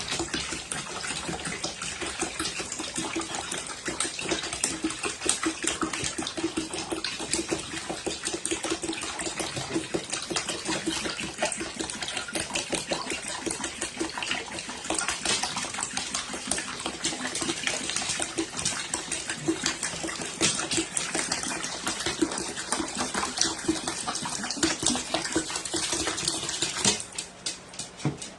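Continuous water splashing and running, with many small splashes one after another, easing off near the end.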